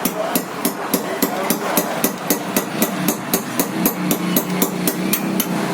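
Hammer blows in a rapid, even series, about four strikes a second, knocking the burnt copper winding out of a ceiling-fan stator.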